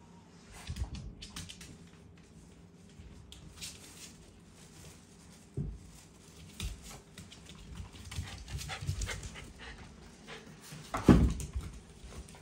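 Shiba Inu panting and huffing through its nose in excited greeting. A few low thumps run through it, the loudest shortly before the end.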